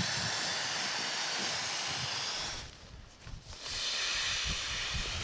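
Air rushing from a squeezed pump sack into a Therm-a-Rest NeoLoft inflatable sleeping pad: a steady hiss for about two and a half seconds, a short pause, then a second long hiss.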